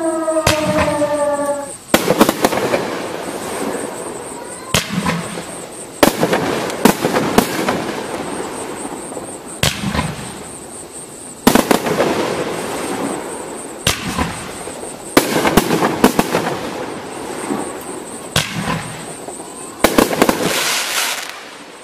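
A Power Blast 'Zombies Escape' 500 g, 25-shot consumer firework cake firing. Sharp bangs come every second or two, some in quick pairs, each followed by crackling as the stars break.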